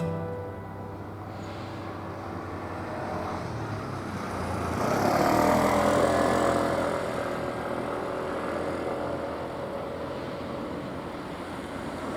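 A train passing by: running noise swells to its loudest about five to six seconds in, its pitch sliding down as it goes past, then eases off again.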